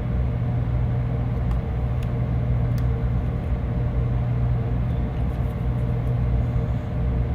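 A steady low mechanical hum, unchanging throughout, with a few faint ticks.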